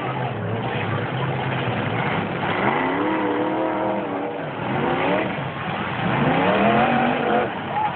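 Pickup truck engines in a demolition derby revving up and down again and again as the trucks drive and ram, over a dense steady background noise.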